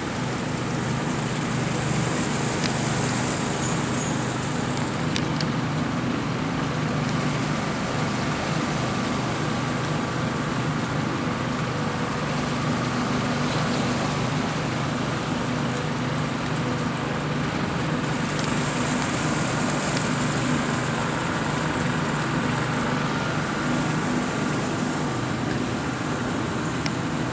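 A motor running at a steady speed: a low, even hum with a wash of noise over it, no change in pace.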